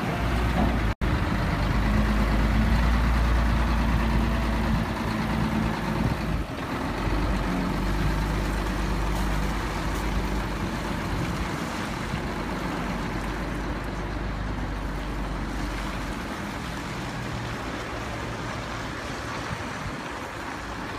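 A Scania P124 truck's 12-litre straight-six diesel runs steadily with a strong low hum while the hydraulic tipper raises the dump body. The engine note shifts about six seconds in and grows gradually fainter over the last several seconds.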